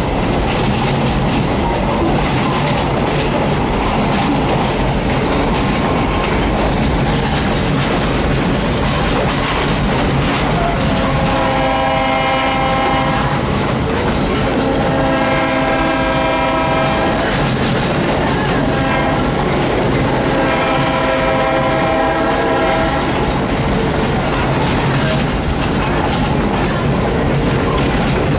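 Passenger train rolling along the track, heard from aboard a coach, with a steady rumble of wheels on rail. About eleven seconds in, the locomotive sounds three long blasts, the last the longest, warning of a road crossing just ahead.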